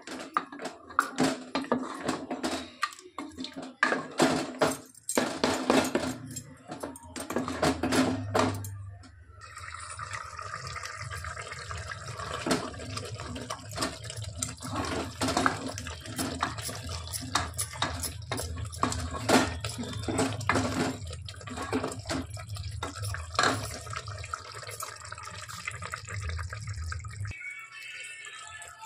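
Wooden spatula stirring a watery curry in an aluminium pot, with repeated scrapes and knocks against the metal and liquid sloshing. A steady low hum joins about a third of the way in and cuts off suddenly near the end.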